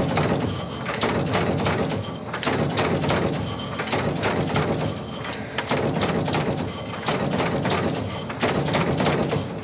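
Rollem Auto 4 numbering machine running and feeding sheets through its numbering heads: a steady mechanical clatter of rapid clicks and knocks that swells and dips every second or two.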